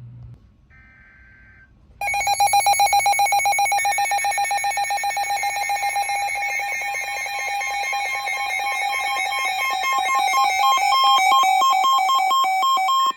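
A brief faint digital data chirp, then about two seconds in a loud, rapidly pulsing electronic alert tone from a weather radio that sounds for about eleven seconds and cuts off suddenly. A steady higher tone joins it in the last few seconds. Together they signal that a new weather warning is being broadcast.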